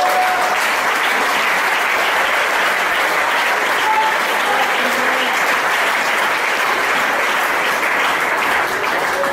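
A church congregation applauding, a steady, dense clapping.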